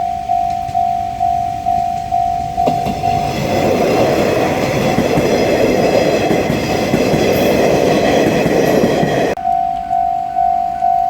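Japanese level-crossing bell ringing in an even electronic ding just under twice a second. About three seconds in, the Anpanman Torokko and its Anpanman diesel railcar pass over the crossing, and their rumble and wheel noise drown out the bell for about six seconds. The train noise cuts off abruptly and the bell rings on.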